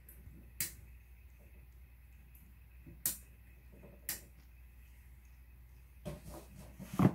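Three sharp, separate clicks over a faint steady hum, then a louder knock with rustling near the end.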